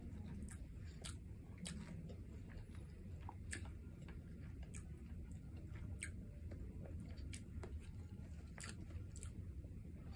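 Close-miked chewing of rice and stew eaten by hand, with irregular sharp wet mouth clicks about once or twice a second over a low steady hum.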